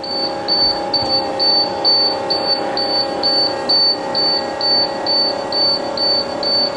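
School bus dashboard warning beeper sounding a high-pitched beep about twice a second over a steady hum. The key is on and the 7.3 diesel is not yet running, waiting on the wait-to-start lamp before cranking in the cold.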